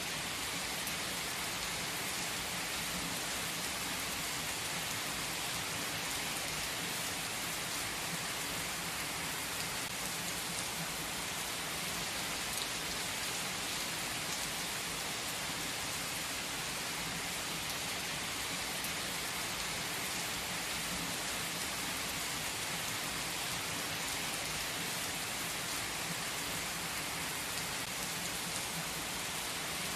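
Heavy rain pouring onto a paved car park, a steady hiss of drops splashing on wet asphalt.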